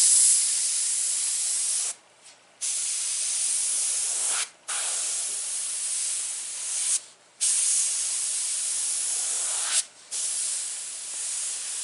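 Airbrush spraying paint in repeated hissing passes, the trigger released briefly four times, giving five stretches of about two seconds each.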